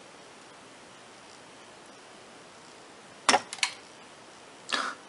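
Soldering tools working a glued-down surface-mount IC off a TV circuit board: a quiet stretch, then three quick sharp clicks a little after three seconds in and a short scrape near the end, as the chip's top breaks away from the board.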